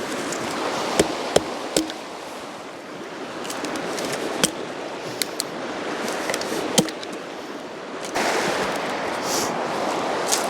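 River water rushing steadily, broken by scattered sharp cracks and knocks as wood is gathered and broken for a campfire. The rushing gets louder about eight seconds in.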